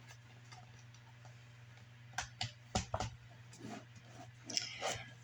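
Faint, scattered clicks and taps of laptop casing parts and screws being handled during reassembly, starting about two seconds in.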